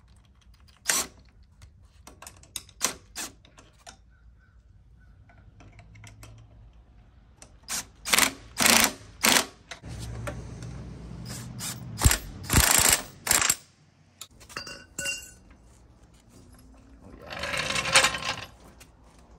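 Cordless impact driver run in short bursts, tightening the front suspension and shock bolts on a lowered ATV. The bursts come in several runs, with a steady hum from the tool between some of them. A longer burst of noise comes near the end.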